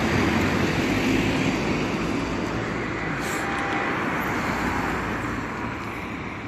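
Street traffic noise: cars and minibuses running on the road, louder at first and fading gradually toward the end.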